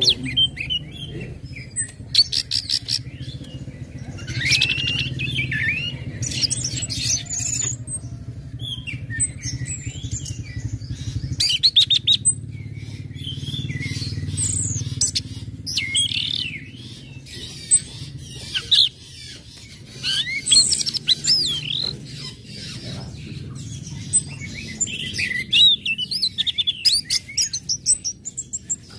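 Orange-headed thrush singing a long, varied run of whistled phrases mixed with quick chip calls and rapid rattling series, over a steady low hum.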